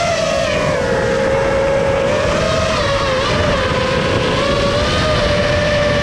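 Small multirotor drone's electric motors and propellers whining, the pitch wavering up and down with the throttle as it banks and swoops.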